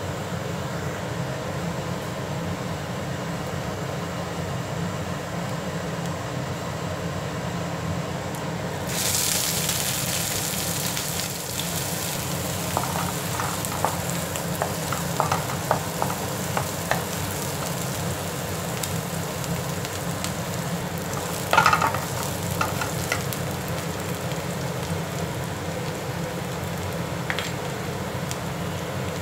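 Chopped onions sizzling in hot oil with cumin seeds in a frying pan. The sizzle starts abruptly about nine seconds in, as the onions go into the oil. A wooden spatula scrapes and knocks against the pan as they are stirred, loudest a little past the middle, over a steady low hum.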